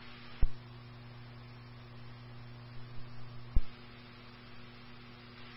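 Steady electrical hum with a hiss of noise on a police scanner recording, between radio transmissions. Two sharp clicks break it, one about half a second in and one about three and a half seconds in.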